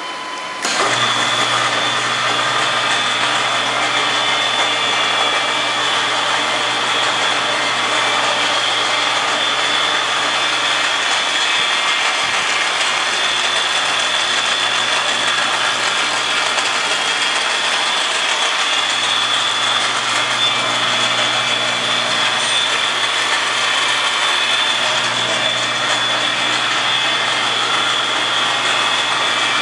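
Electric gear motor and chain drive of a rotary painting turntable, switched on about half a second in and then running steadily: a high whine over a low hum.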